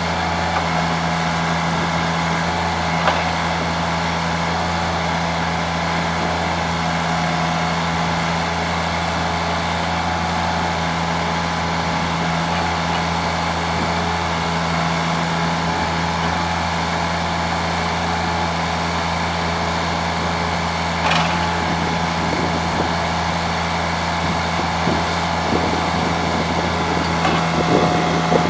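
Allmond Bros TLB425ESL backhoe loader's engine running steadily with an even low hum, with a sharp click about 3 seconds in and another about 21 seconds in, and a few light knocks near the end.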